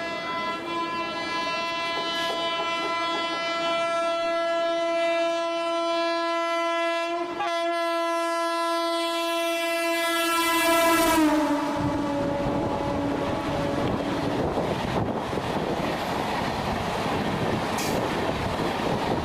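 High-speed passenger train approaching and passing while sounding one long, steady horn. The horn's pitch drops about eleven seconds in as the train goes past. After that comes the loud rushing rumble and clatter of the train running by.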